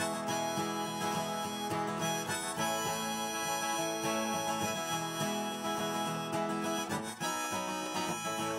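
Background instrumental music: harmonica melody over guitar.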